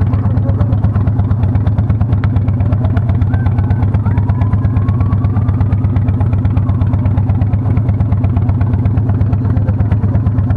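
Cruiser motorcycle engine idling loudly and steadily, a low, rapid, uneven pulsing beat.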